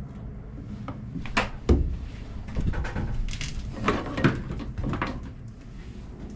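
A series of irregular knocks and clunks from plumbing parts and hose being handled and fitted, the loudest about a second and a half in, over a low steady rumble.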